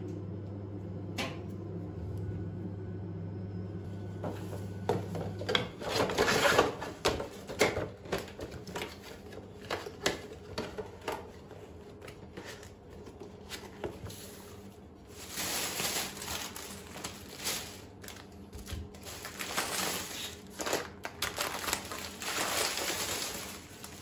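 Hands handling things on a kitchen counter: soft toy stacking rings set down and packed into a cardboard box with light knocks and scrapes, then a plastic shopping bag rustling as groceries are lifted out. A steady low hum underneath stops about five seconds in.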